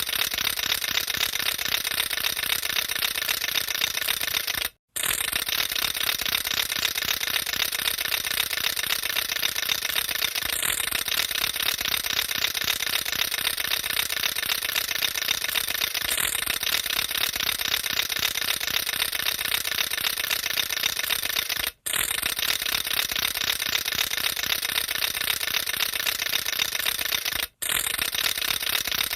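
A matraca, a wooden ratchet rattle, being whirled: a fast, continuous clatter of clicks. It breaks off for a split second three times, about five seconds in, near twenty-two seconds and near twenty-seven seconds, then starts again.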